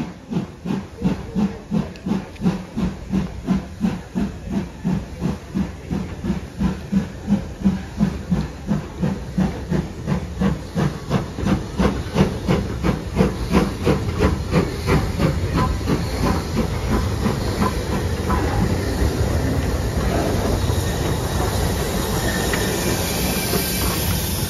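Steam locomotive running into the platform with a regular rhythm of beats, growing louder as it approaches, then a steady hiss of steam as it draws alongside near the end.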